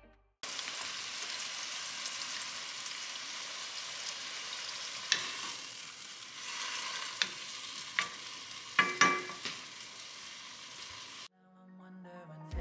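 Kimchi sizzling as it is stir-fried in a hot pan, a steady frying hiss. Several sharp knocks and scrapes of the spatula against the pan come in the second half, a cluster of them around nine seconds in, before the sizzle cuts off near the end.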